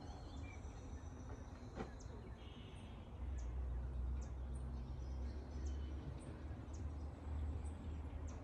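Truck engine running with a steady low rumble that grows louder about three seconds in, while birds chirp.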